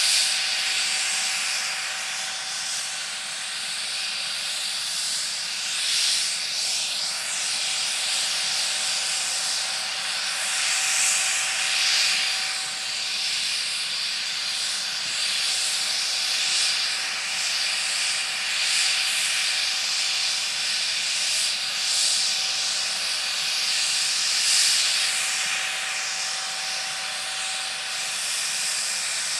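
McDonnell Douglas MD902 Explorer helicopter's twin turbine engines running on the ground, a steady rushing hiss with one constant tone underneath, swelling and easing slightly every few seconds.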